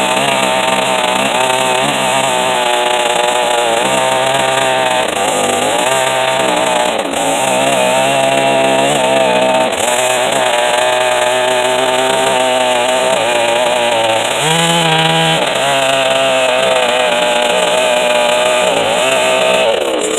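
Chainsaw running at high revs through a rip cut in red oak, its engine pitch sagging and recovering as the cut loads it, with a brief dip about two thirds of the way through.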